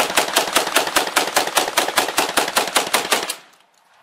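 AA-12 fully automatic 12-gauge shotgun firing one long burst into a wooden door, roughly five to six shots a second, breaching through the door's lock area. The burst stops about three seconds in.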